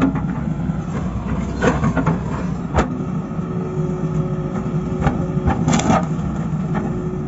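Excavator's diesel engine running steadily with a steady whine, broken by a few sharp knocks.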